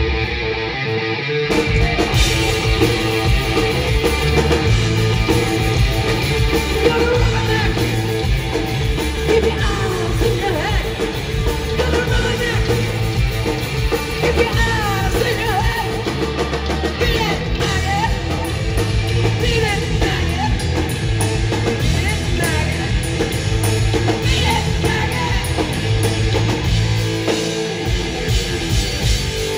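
Heavy metal band playing live: distorted electric guitars, bass and drums driving steadily, with a singer's voice over the top.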